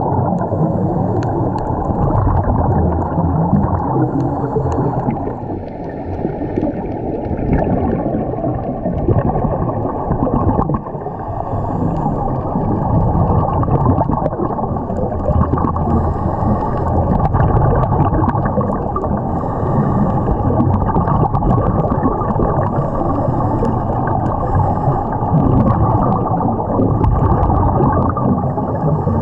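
Steady, muffled underwater noise with gurgling from scuba divers' regulator bubbles, as heard by a camera beneath the surface.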